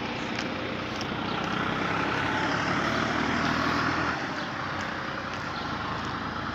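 A road vehicle running past, getting louder and then dropping off suddenly about four seconds in.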